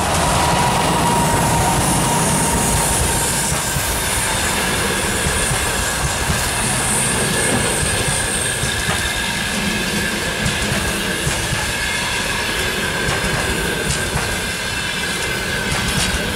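EP2K electric locomotive passing close, followed by its passenger coaches rolling by: a loud, steady rumble of steel wheels on rail with occasional clacks over the rail joints. A thin steady high ring runs under the rumble.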